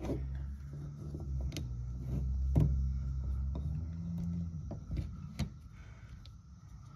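Rivet gun being squeezed to set a blind (pop) rivet, giving sharp clicks about four times, the loudest in the middle, as the rivet's mandrel is drawn in. A low steady hum runs under it and fades about two-thirds of the way through.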